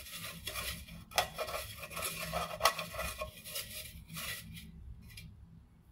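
Hand scraping sticky bread dough out of a mixing bowl onto a wooden board: a run of short rubbing, scraping strokes with a couple of sharper knocks, dying away shortly before the end.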